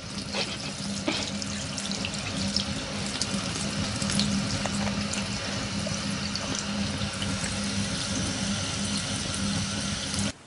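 Tap water running steadily into a sink, with a low steady hum underneath and a few small ticks; it cuts off suddenly near the end.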